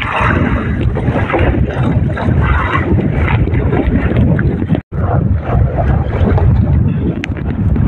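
Strong wind buffeting the microphone, with rough waves splashing around a small outrigger boat. The sound cuts out for an instant about five seconds in.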